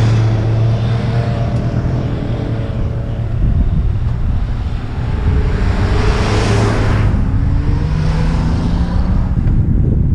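Wind and road noise on an action camera's microphone as a footbike rolls downhill, with vehicle engines running nearby. A camper van passes close by about six seconds in, its engine and tyre noise swelling and fading.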